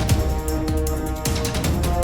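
Background music with a steady beat, a heavy bass and sustained synth chords.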